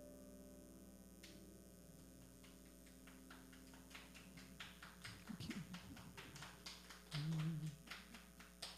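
The last notes of an upright piano die away. Then a light, scattered clapping from a small congregation builds up for several seconds, a few sharp separate claps a second.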